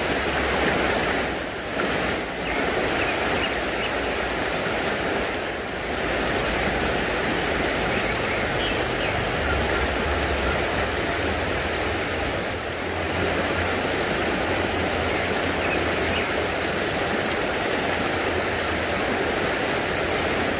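Shallow creek running over rocks: a steady rush of riffle water.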